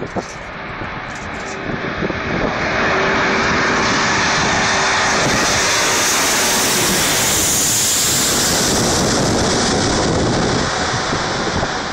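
Four-engine jet airliner flying low overhead on landing approach. The jet noise swells to a loud, steady rush over the first few seconds, with a steady engine tone under it in the first half, then fades near the end.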